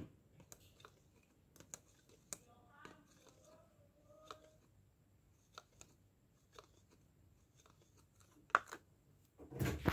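A spoon stirring a thick slime mixture in a plastic cup: faint, irregular clicks and taps against the cup, with a louder rustle and knock near the end.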